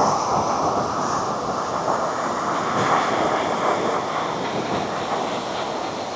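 Ocean surf washing steadily, a dense rushing noise that swells and eases a little.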